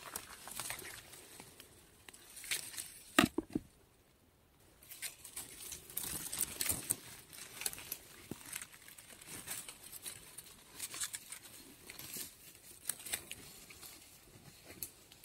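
Close, irregular rustling and crackling of dry fallen leaves, grass and thin twigs as a hand pushes through forest-floor litter. A sharp crack about three seconds in is the loudest sound.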